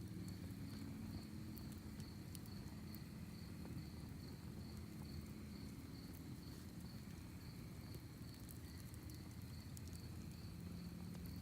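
Crickets chirping in a steady, even rhythm, with scattered faint crackles and pops from a wood campfire and a low rumble underneath.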